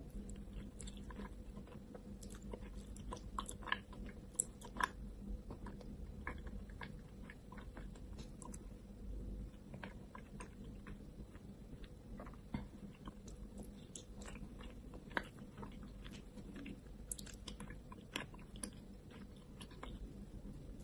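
Close-up mouth sounds of eating wet clay paste: sticky smacking, squelching and sharp wet clicks as it is chewed, in irregular clusters over a faint steady hum.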